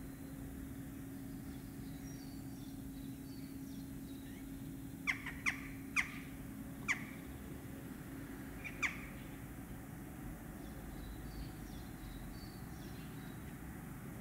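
Common starling singing courtship song: soft, high chirps and twitters throughout, broken in the middle by five loud, sharp notes that each sweep steeply downward.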